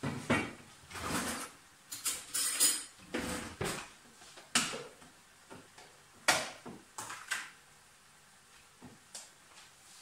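Kitchen utensils and containers knocking, clinking and scraping against a stainless steel pot at the stove, in irregular clatters that are busiest in the first half and thin out to a few light clicks.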